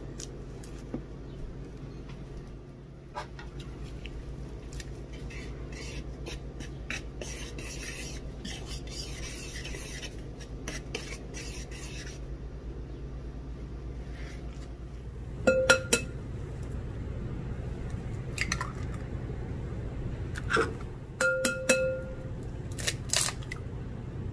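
Kitchen utensils and dishes clinking and clattering, several clinks ringing briefly like metal or glass, over a steady low hum. A stretch of fine crackling runs through the first half.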